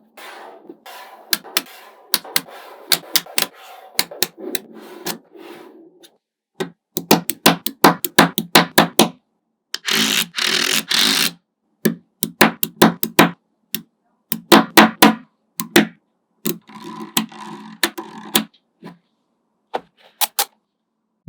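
Small magnetic balls clicking and snapping together as they are placed, in irregular runs of sharp ticks, with a longer dense rattle of balls about ten seconds in.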